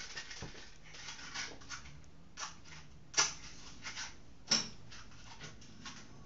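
Gas stove being lit under a pot: a scattered series of sharp clicks and light knocks, the two loudest a little after the middle and about a second later, the last with a short metallic ring.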